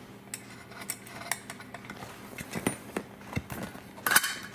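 Light metallic clicks and taps as the sheet-metal cover of a Honeywell V8043C zone valve power head is worked loose by hand, with a louder scrape about four seconds in as the cover slides off the motor.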